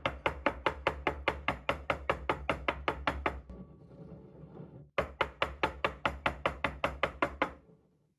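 Glass jar of hazelnut butter knocked rapidly on a wooden cutting board, about eight knocks a second, in two runs with a pause of a second or so in the middle.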